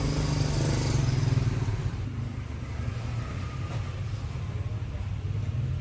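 A motor running with a steady low hum, with a high hiss that fades out about two seconds in.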